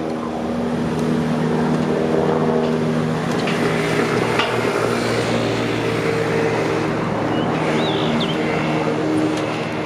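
A JR Tokaido Line train passing a level crossing: a steady rush of wheels on rail with a few sharp clacks. Steady tones from the crossing's warning alarm sound underneath.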